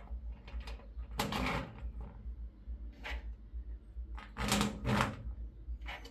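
Short clicks, rattles and knocks of bolts and a plastic lock housing being fitted to a drilled acrylic door. The loudest pair comes about four and a half seconds in, over a steady low hum.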